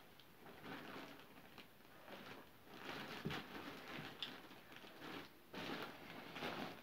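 A calligraphy pen scratching across paper in a series of short, irregular strokes as letters are written or traced over.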